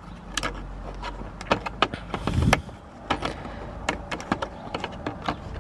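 Plastic steering-wheel trim covers being pried and unclipped by hand: a run of irregular clicks and snaps, with a louder scraping rattle about two and a half seconds in.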